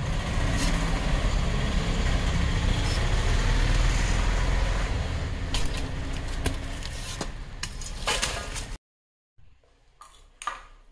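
Steady outdoor rumble, loud and heavy in the low end, with a few sharp clicks in its second half. It cuts off abruptly about nine seconds in, leaving faint indoor room sounds.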